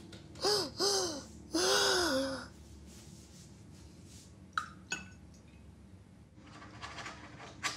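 A woman sobbing: three breathy cries, each rising and falling in pitch, in the first couple of seconds. About halfway through come two light glass clinks.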